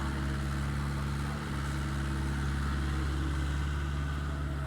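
Engine running steadily at idle, a constant low hum.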